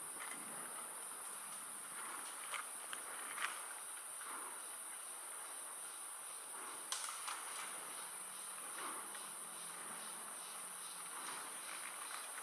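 Steady high-pitched drone of forest insects, with a few faint clicks and rustles.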